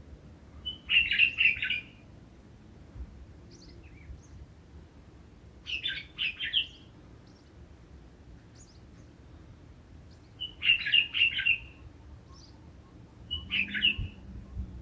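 A songbird singing short phrases of rapid, high chirping notes, each about a second long, four times with pauses of several seconds between them.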